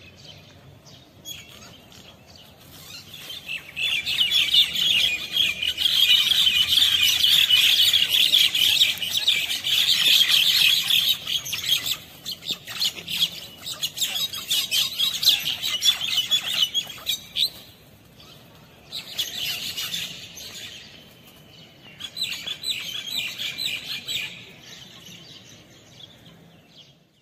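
A crowd of small birds chirping together in a dense, rapid, high-pitched chatter. It swells about three seconds in, fades after the middle, and returns in two shorter bursts near the end.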